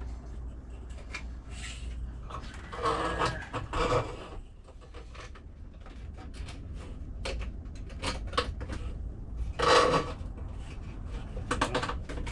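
Scattered knocks, clicks and rattles of hardware being handled and fitted during a heater install, loudest about three to four seconds in and again near ten seconds, over a steady low hum.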